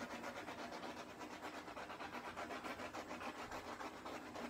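Handheld torch flame hissing steadily with a rapid flutter, played over wet poured acrylic paint to pop air bubbles and bring up cells.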